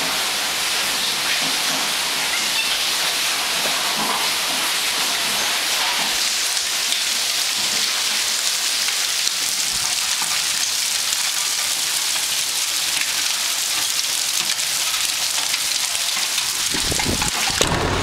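A hailstorm: hail and rain pelting a patio and the house in a steady, dense crackling hiss.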